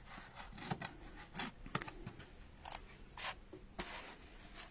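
Scissors making a series of short, faint snips through felt, trimming off excess felt.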